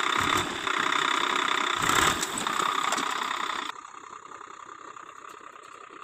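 Tractor engine running with the clatter of a tractor-mounted wheat reaper. The sound drops suddenly about four seconds in, leaving a fainter steady hum.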